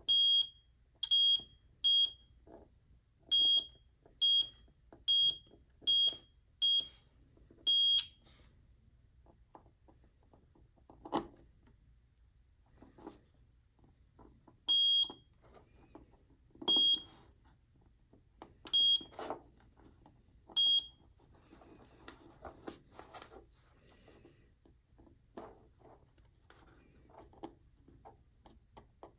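Plusivo digital multimeter's continuity buzzer giving short high beeps, nine in quick succession over the first eight seconds, then four more about two seconds apart. Each beep marks a probed breadboard hole that shares a current path with the test point, showing continuity along a bus strip. Light clicks and rustling of wires between the beeps.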